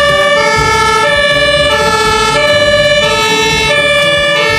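Fire engine's two-tone siren alternating steadily between a high and a low note, each held about 0.7 s.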